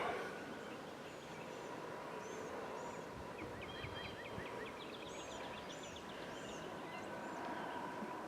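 Faint outdoor ambience with birds calling: short high chirps in groups of two or three, and a quick rattling series of notes about three to four seconds in.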